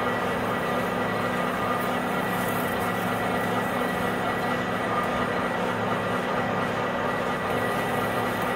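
Metal lathe running steadily at about 250 RPM while a freshly sharpened drill bit in the tailstock chuck bores into aluminum, a constant machine hum with a few steady tones over the cutting noise. The drill is cutting nice and even, both flutes throwing chips.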